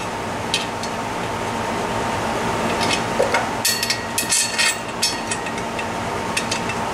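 Light metallic clicks and clinks from the exhaust's swing-arm clamp bracket and its Nylock nuts and bolts being handled and fitted. They come scattered, with a quick cluster just past the middle, over a steady background hum.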